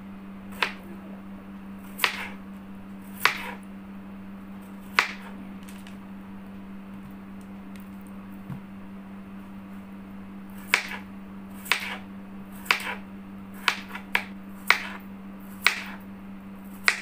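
Kitchen knife cutting through raw potato and striking a plastic cutting board in single sharp knocks: four spread over the first five seconds, a pause, then a quicker run of about eight. A steady low hum runs underneath.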